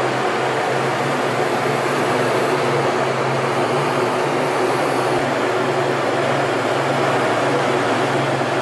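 Steady rushing air and jet noise inside the cockpit of a T-38 Talon jet trainer in flight, with a low steady hum underneath.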